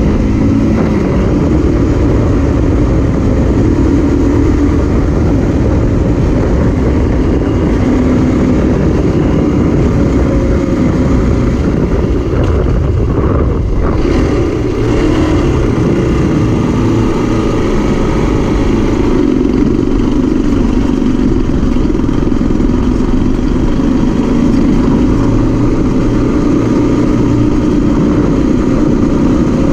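Zongshen RX3 motorcycle's single-cylinder engine running under way, mixed with wind and road noise on the bike-mounted camera's microphone. The engine note eases off briefly about halfway through, then picks up again.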